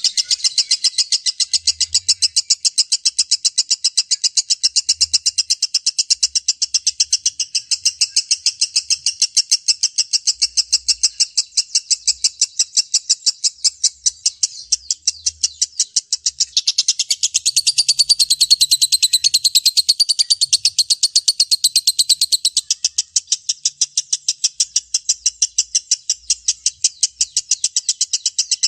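Lovebird in a long 'ngekek' chatter: a rapid, even, unbroken string of high chirps, several a second. For a few seconds past the middle it turns fuller and a little louder.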